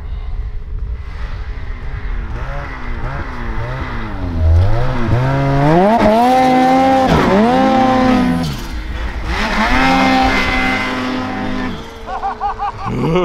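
Turbocharged two-stroke mountain snowmobile revved hard at close range while ploughing through deep powder. The engine pitch climbs about four and a half seconds in and holds high, dips briefly, rises again, then drops back near the end.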